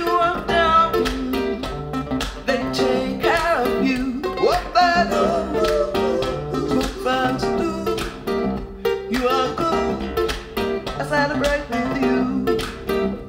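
Acoustic guitar music from a vinyl record, played through Harbeth M30.1 loudspeakers and picked up by a microphone in the room: a plucked guitar passage with no sung words.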